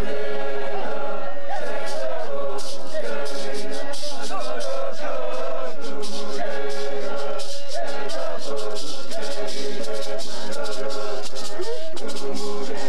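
Ramkokamekra-Canela chant: voices singing in unison with sliding pitches. From about a second and a half in, a shaken rattle joins and keeps a steady beat.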